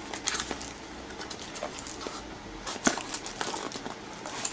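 Rustling and light clicks of packaging and a plug-in AC adapter being handled during unboxing, with one sharper click about three seconds in.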